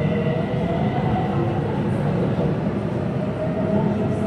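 Steady running noise heard inside a BTS Skytrain car on the move: an even rumble with a faint high tone that fades in the first second or two.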